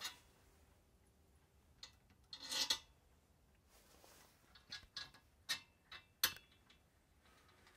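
Faint hand-handling noises as a plastic fan motor is seated in a metal fan shroud and small bolts and nuts are placed: a short scrape about two and a half seconds in, then a few scattered sharp clicks, the loudest just past six seconds in.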